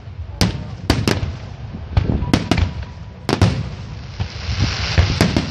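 Aerial firework shells bursting in quick, irregular succession, about ten sharp bangs. Around four seconds in comes a hissing crackle from glittering crackling stars.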